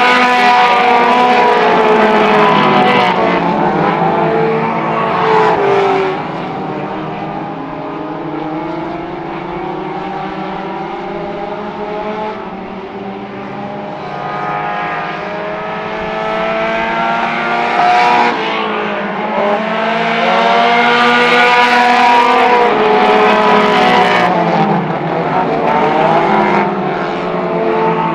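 Mini stock race cars' four-cylinder engines racing, several at once, revving up and easing off in pitch as the pack goes by. Loud at first, softer through the middle, then loud again about two-thirds of the way through.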